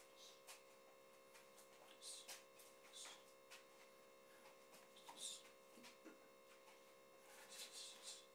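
Near silence: a faint steady electrical hum, with a few soft, short hisses scattered through it.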